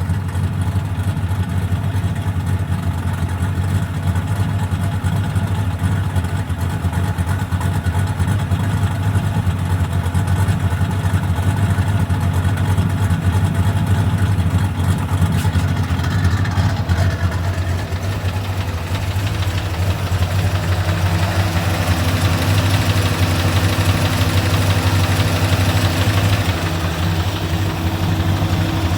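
V8 engine with a Comp Cams XR270HR hydraulic roller camshaft, running steadily at idle, with a noise that the owner asks may be rod knock.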